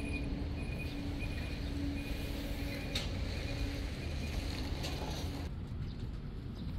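Outdoor background: a steady low rumble with a faint steady hum over it, the hum and the higher sounds dropping away about five and a half seconds in.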